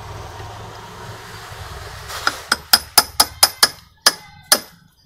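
Steel spanner clicking against the bolt of a crankshaft puller as it is worked in short strokes: a run of about nine sharp metallic clicks, roughly four a second, as the crankshaft is drawn into the crankcase bearing. A low steady hum comes first.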